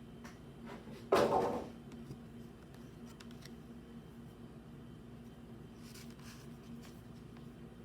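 Handling of a Pokémon trading-card collection box and its packaging: one short, loud scraping rustle about a second in, then faint clicks and light rustles over a steady low hum.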